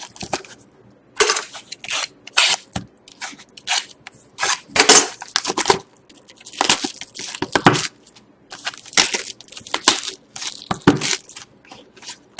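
Cardboard and plastic wrap crinkling and tearing in irregular bursts as a sealed box of Panini Select hockey cards is unpacked and its mini boxes pulled out.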